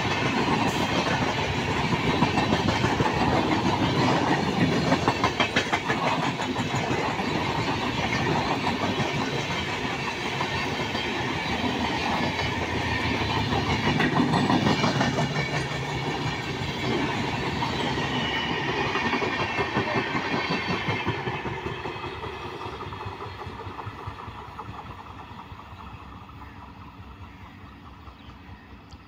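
Passenger coaches of an express train running past at speed, their wheels clattering rhythmically over the rail joints. Over the last several seconds the rumble fades steadily as the train pulls away.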